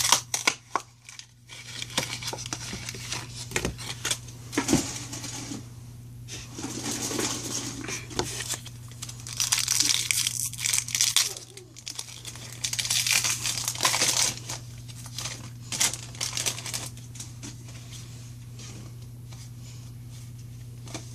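A foil Pokémon card booster pack being torn open and crinkled by hand, in irregular crackling bursts that die down over the last several seconds. A steady low hum runs underneath.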